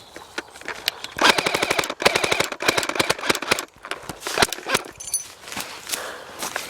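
Airsoft guns firing rapid full-auto bursts, a fast rattle of shots lasting about two seconds starting a second in, followed by a few scattered single shots.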